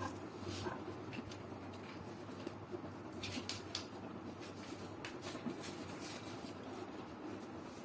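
A felt-tip marker rubbing across paper while colouring in, then a few faint light clicks.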